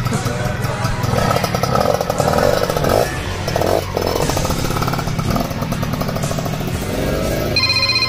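Small motorcycle engines running and revving up and down, the pitch rising and falling. Near the end, an electronic ringing tone pulses in steady repeats.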